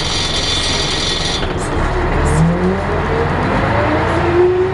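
Scania L113 bus's 11-litre six-cylinder diesel and driveline heard from inside the saloon, a steady low drone, then a whine rising in pitch from about two seconds in as the bus picks up speed. A high steady hiss cuts off about a second and a half in.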